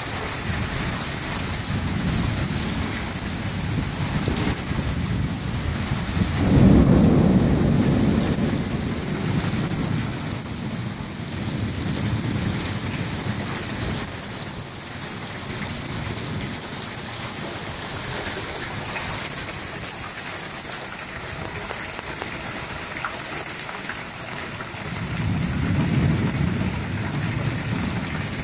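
Heavy rain falling steadily, with rolling thunder: a loud rumble breaks about a quarter of the way in and fades over a few seconds, and another swells near the end.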